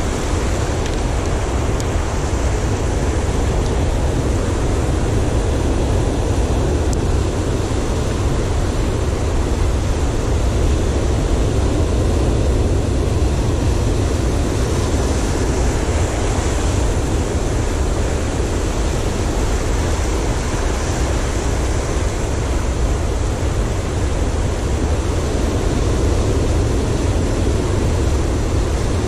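Surf breaking and washing over a rocky shore: a steady, unbroken rush with a deep rumble underneath.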